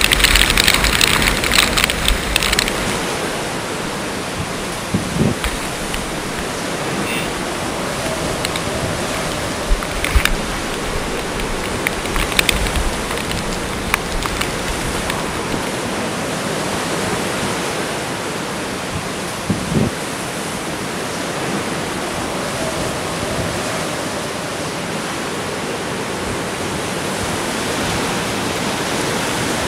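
Hurricane storm noise: a steady rushing roar of wind and water, a little louder in the first couple of seconds, with a few brief knocks.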